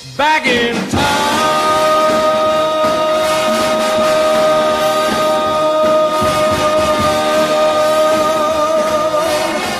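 Jingle music: a quick falling glide, then one long note held for about eight seconds over a steady beat.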